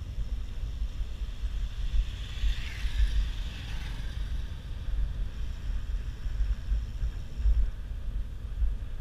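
Wind buffeting the microphone of a camera on a moving bicycle: an uneven low rumble that rises and falls in gusts, with a brief swell of higher hiss about two to four seconds in.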